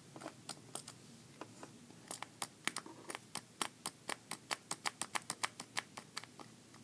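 Cap of a small Yves Rocher day-cream container being turned by hand: a run of light clicks, a few scattered at first, then a quick, even series of about four a second for several seconds.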